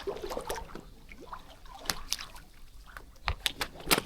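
Water splashing and slapping in short, sharp splashes as large catfish snap up bread at the surface, with several in quick succession near the end.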